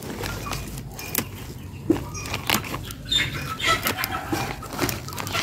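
Brazilian spinach leaves rustling and stems snapping as they are picked by hand, heard as irregular crisp crackles and snaps.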